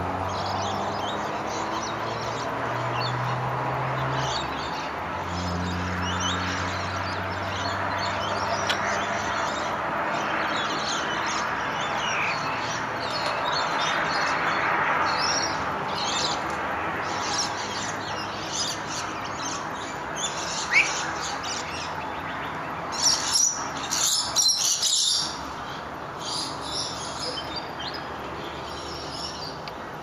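Dawn bird chorus: many birds chirping and calling at once, with a louder burst of calls about three quarters of the way through. A low steady hum sits underneath during the first half.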